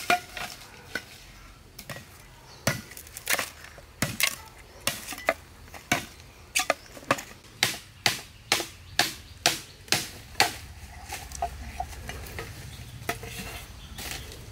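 A heavy cleaver chopping and splitting a green bamboo tube: sharp, irregular knocks, about one to two a second, getting lighter after about ten seconds in.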